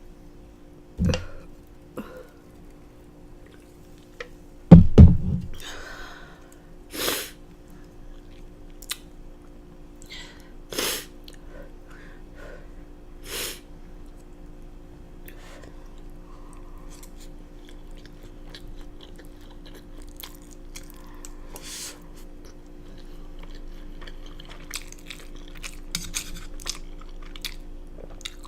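Close-miked chewing and eating of spicy black bean noodles and fried dumplings, with several short, sharp eating noises. A loud, low, brief sound comes about five seconds in.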